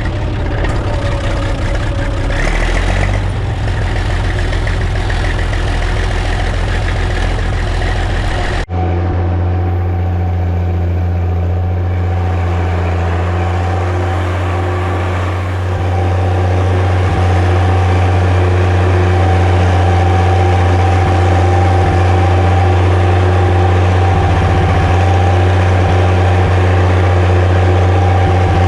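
Massey Ferguson 95X tractor's six-cylinder diesel engine running steadily. The sound changes abruptly about nine seconds in to a stronger low hum with a steady higher tone over it, and grows a little louder around sixteen seconds in.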